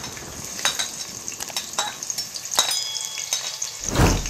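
Chopped onions sizzling in hot oil in a metal pot, stirred with a slotted metal spoon that clicks and scrapes against the pot now and then. A louder thump comes near the end.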